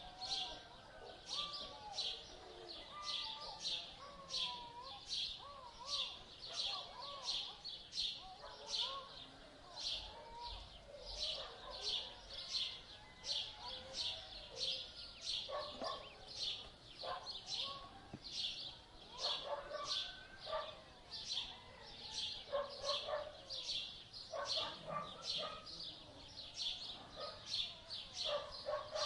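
Birds calling: one bird repeats a short, high chirp about two times a second without pause, while other birds' lower, warbling calls come and go underneath.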